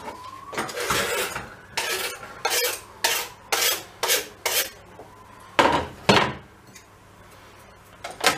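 Kitchen knife scraping and tapping minced garlic off a wooden cutting board into a glass bowl of yogurt: a quick run of about ten sharp scrapes and knocks, then two heavier knocks about halfway through.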